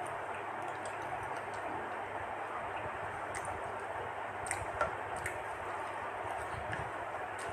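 Close-up eating sounds: wet chewing and squishy mouth noises with scattered small clicks, one sharper click about five seconds in, over a steady background hiss.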